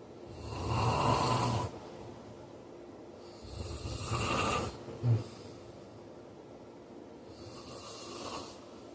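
Heavy-set man snoring in his sleep: three long rasping snores about three and a half seconds apart, the last one fainter, with a short sharp snort just after the second.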